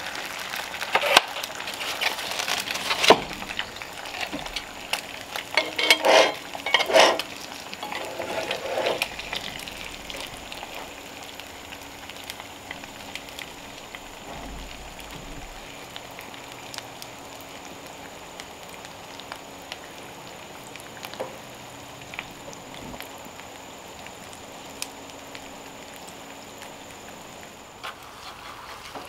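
Eggs and sausage patties frying in cast-iron skillets over a wood fire: a steady sizzle. Several sharp clicks and knocks come in the first few seconds, and after that the sizzle runs on evenly and more quietly.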